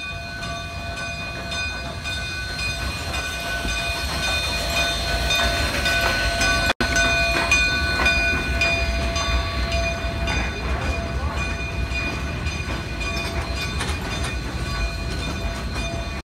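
Cumbres & Toltec K-36 narrow-gauge steam locomotive No. 487 rolling slowly past at close range, hissing steadily, with several steady tones over the hiss. It grows louder as the cab draws level, and the sound breaks off for an instant about seven seconds in.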